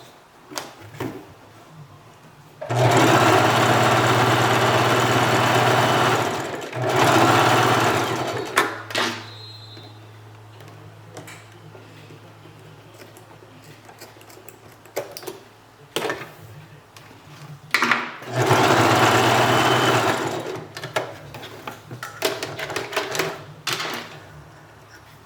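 Sewing machine stitching in three runs, the first about four seconds long and the later two shorter. Between the runs there are scattered clicks and a low steady hum.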